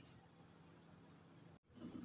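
Near silence: faint room tone, broken by a brief dropout about one and a half seconds in, followed by faint low noise.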